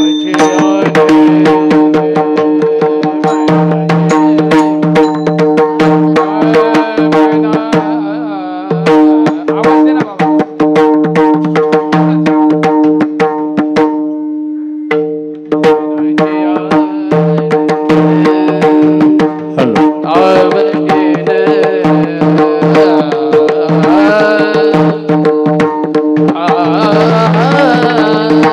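Devotional kirtan music: a steady held drone with fast hand-drum strokes and small hand cymbals (taal) keeping the beat. A man's voice sings over it at times, most strongly in the last several seconds. The accompaniment thins briefly about halfway.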